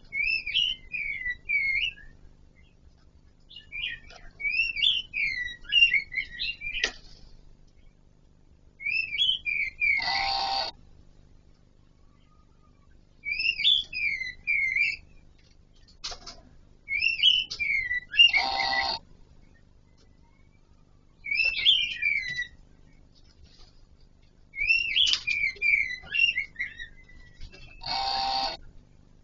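Kon Ka Kinh laughingthrush singing: short phrases of quick sliding notes repeated every few seconds, three of them ending in a harsh buzzing note that lasts under a second. A couple of sharp clicks fall between phrases.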